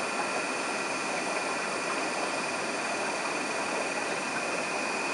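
Steady background hiss with a constant high-pitched whine running through it, even and unchanging, like a small machine running.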